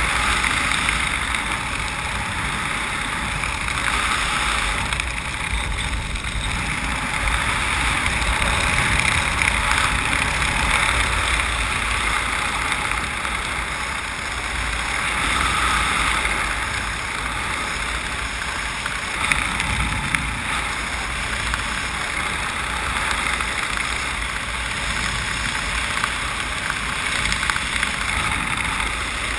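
Steady wind rushing over the skydiver's camera microphone during a descent under an open parachute, with a low buffeting rumble that swells and eases every few seconds.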